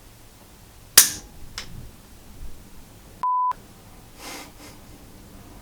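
A single rifle shot about a second in, sharp and the loudest thing here, followed by a smaller click. A little past three seconds a short steady bleep tone replaces the sound, the kind of edit bleep laid over a muted word.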